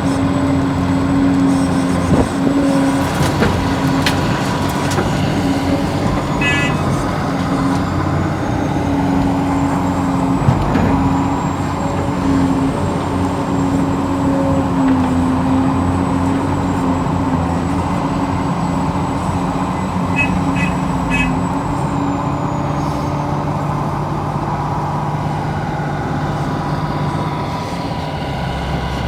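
Radio-controlled scale excavator and dump truck running: a steady hum of electric motors and hydraulic pump with a thin high whine over it. A few short clicks and rattles come in now and then.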